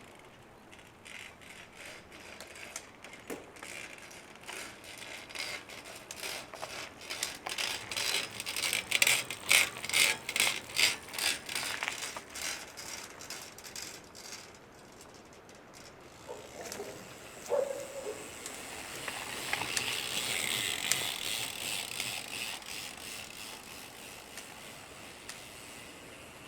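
Shimano XT FH-M8110 Micro Spline rear hub turning, with a run of sharp, evenly spaced creaks or clicks that swell in the middle, then a smoother hissing spin. This is the creak these freehubs develop when they run short of grease.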